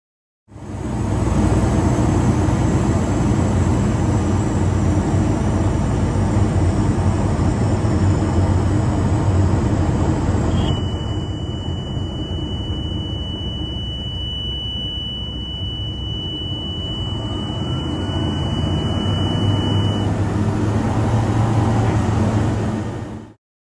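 Cabin noise of an Aerospool WT9 Dynamic light aircraft in flight: a steady engine and propeller drone. About ten seconds in, a steady high-pitched warning tone comes on and sounds for about nine seconds. This is the stall warning as the aircraft is taken into the stall. The drone eases a little while the tone sounds and rises again near the end.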